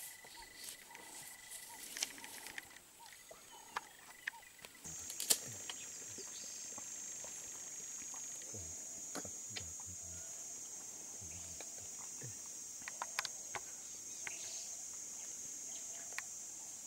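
A steady, high-pitched chorus of insects starts abruptly about five seconds in and carries on, with scattered light clicks and taps over it. Before it come soft rustles and knocks from a hooked wooden pole being worked down a springhare burrow in sandy soil.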